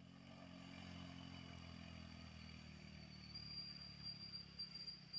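Small motor scooter engine running steadily at low revs, faint, with a thin steady high-pitched tone over it.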